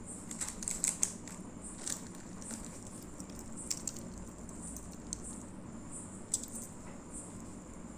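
Hands handling metal earrings and a plastic packet: scattered small clicks and rustles, a cluster in the first second and then a few single ones, over a faint steady high whine.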